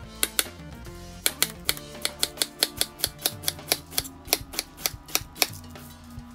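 Kitchen knife slicing a head of green cabbage on a wooden cutting board: quick, even strokes about four a second, each ending in a sharp knock on the board, stopping about five and a half seconds in. Background music plays underneath.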